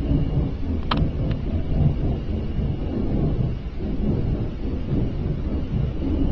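A loud, continuous low rumble of unknown origin, like a giant flame, with a short click about a second in.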